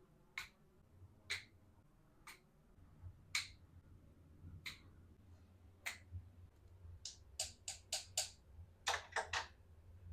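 Small plastic toy pieces clicking and tapping as they are handled: a dozen or so sharp clicks, spaced irregularly and coming in a quick run of several near the end.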